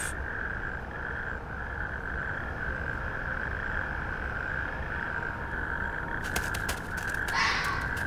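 Natterjack toads calling: one steady, unbroken call held through the whole stretch, with a few faint clicks near the end.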